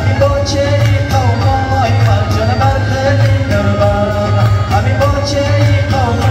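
Dance music with a singing voice over a steady, heavy beat.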